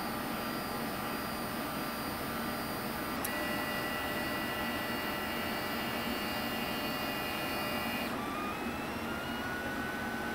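LulzBot dual-extruder 3D printer running, its stepper motors whining in steady tones over a steady whir as the bed and print head move. The tones change with a click about three seconds in and again around eight seconds, after which one tone slides up and back down.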